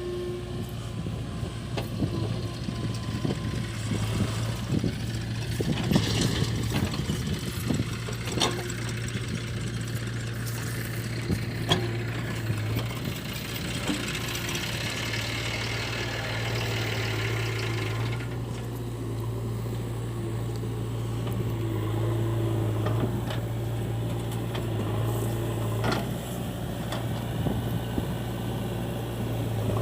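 Heavy diesel engine of a backhoe loader or tractor running steadily at low revs, with a few sharp clanks now and then and a stretch of hiss in the middle.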